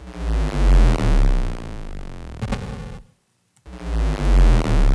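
8-bit 'Crash and Burn' preset on the Plogue Chipsounds chip-emulation synthesizer, played twice: each note is a buzzy sweep falling in pitch with a deep rumble at its start, lasting about three seconds.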